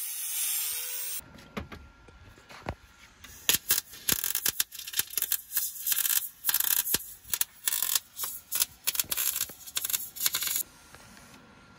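An angle grinder cutting steel stops about a second in. Then a MIG welder's arc crackles in short, stuttering bursts while a tab is welded onto a steel bash bar. A lot of molten metal is falling rather than sticking, a sign of a poor weld.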